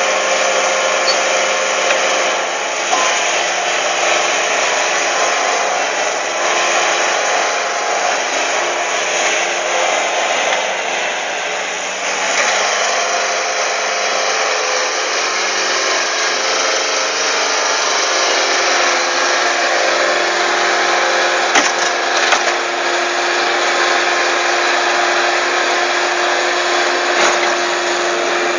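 Bobcat S130 skid-steer loader's diesel engine running steadily under load, its hydraulics working the lift arms and bucket as the machine levers itself up onto a truck. A couple of sharp knocks about three-quarters through.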